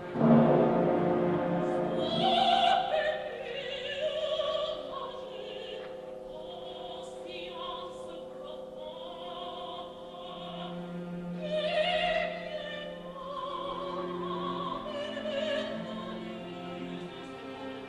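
Operatic soprano singing long held notes with vibrato over a sustained orchestral accompaniment; the orchestra swells loudly at the very start.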